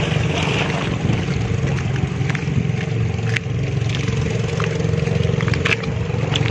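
An engine running steadily, a low even drone with a steady higher hum above it, and a few sharp clicks scattered through it.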